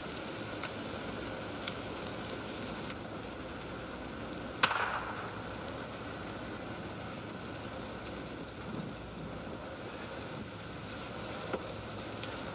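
A large wood-framed building burning: a steady rushing noise with scattered sharp cracks and pops, one much louder crack about four and a half seconds in.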